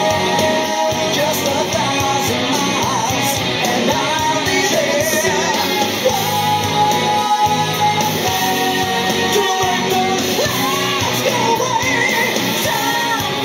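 Rock song with a singer and guitar playing through a homemade .50 cal ammo-can Bluetooth speaker fitted with two Kicker marine speakers.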